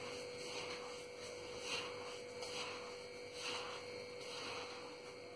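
Hand working damp semolina and ragi flour in a ceramic bowl, faint rubbing and squishing swishes repeating about once or twice a second as water is worked in toward a dough. A steady faint electrical hum runs underneath.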